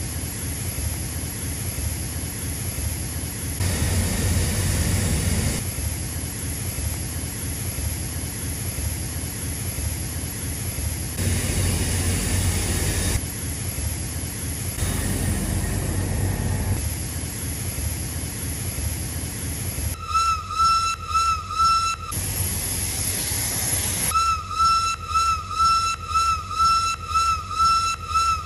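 Steam locomotive hissing steam, a steady rushing noise. From about two-thirds of the way in, a rhythmic pulsing sets in, about two beats a second, with a high steady tone swelling on each beat. It breaks off briefly for more hiss, then resumes.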